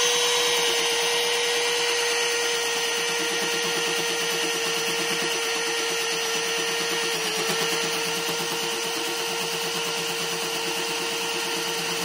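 Cordless drill running at a steady speed with an even whine, turning a 7/8-inch line boring bar whose tool bit is cutting the bore.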